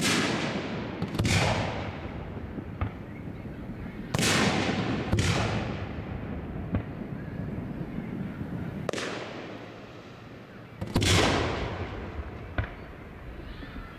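Aerial firework shells bursting: a series of loud booms a second to a few seconds apart, each trailing off in a rolling echo, with a few fainter cracks between them.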